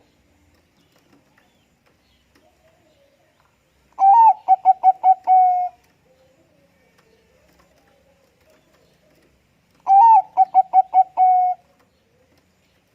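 Zebra dove (perkutut bangkok) singing two song phrases about six seconds apart. Each phrase is a short rising note, a quick run of about five clipped coos, and a longer held coo at the end.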